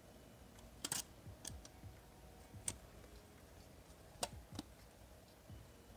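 Faint, light plastic clicks and handling as a green colour-filter sheet is pressed into the small plastic filter frame of a SmallRig RM01 mini LED light. There are about five short, sharp clicks, spaced irregularly.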